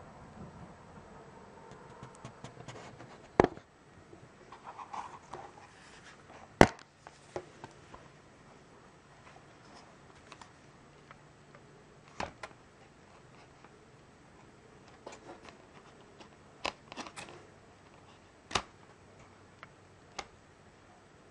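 Plastic multi-disc DVD case and disc trays being handled: a series of sharp plastic clicks and snaps a few seconds apart, the loudest two about three and seven seconds in, with light rubbing and rustling in between.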